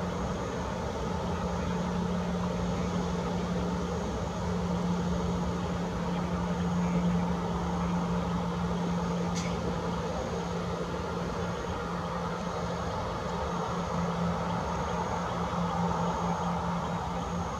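Boeing 737-800's CFM56-7B jet engines running at idle thrust as the airliner taxis slowly on the runway: a steady jet rumble and hiss with an even low hum.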